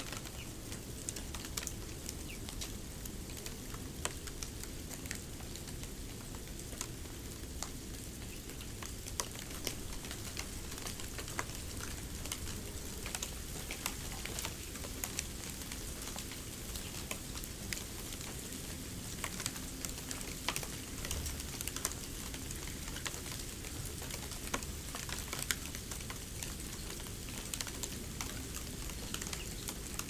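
Snow crunching and crackling: a continuous fine crackle with many scattered sharper clicks over a low rumble.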